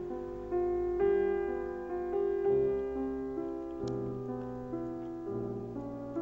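Slow piano music, held notes and chords changing about every half second, with a lower bass line coming in a few seconds in.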